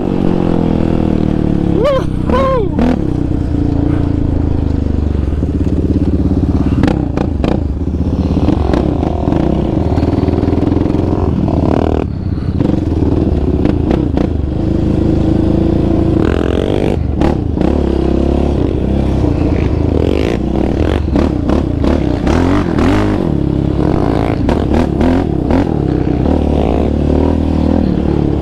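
Sport ATV's single-cylinder four-stroke engine running as it is ridden along a trail, its pitch rising and falling again and again as the throttle is worked. Sharp knocks and rattles from the machine come through here and there.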